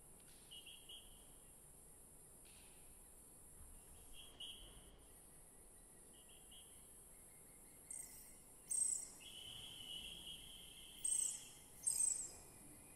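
Quiet contemporary music of insect-like sounds from a recorder orchestra and tape. Short high whistling tones come and go in the first half. In the second half a longer held tone sounds, along with several loud, brief shrill chirps.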